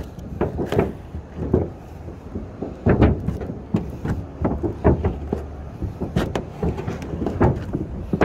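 Irregular scrapes and knocks of a hand spreader working thick roof tar over mesh seam tape on a metal roof, over a low rumble.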